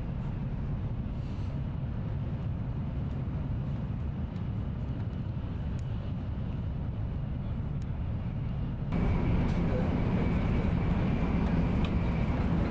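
Steady low rumble of a Shinkansen Nozomi bullet train's passenger car at speed, heard from inside the cabin. About nine seconds in it steps up louder and brighter, with a faint high whine.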